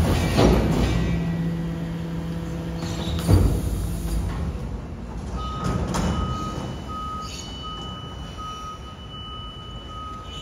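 BYD electric garbage truck's hydraulic packer running with a steady hum, stopping with a clank about a third of the way in. From about halfway the truck's reversing alarm beeps over and over.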